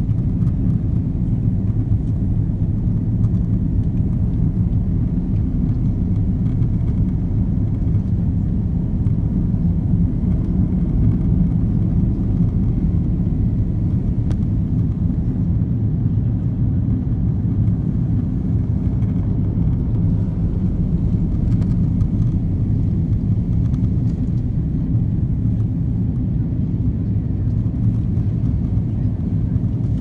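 Steady low rumble of cabin noise inside an Airbus A330-300 on approach: engine and airflow noise heard from a window seat over the wing, even throughout with a faint steady hum in it.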